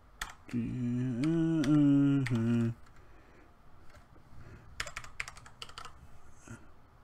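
Typing on a computer keyboard while entering a password, with a dense run of keystrokes about five seconds in. Near the start a man hums a few wavering notes for about two seconds over the key clicks.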